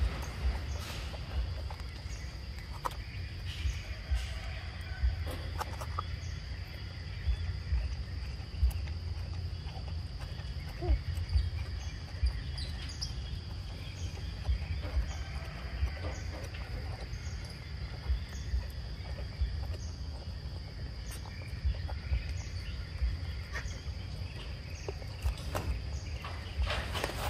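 Insects trilling steadily on one high pitch, over a low, uneven rumble with frequent bumps and scattered small clicks and rustles.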